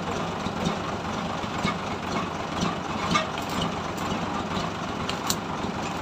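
A steady engine running at idle, with scattered light clicks and crackles over it.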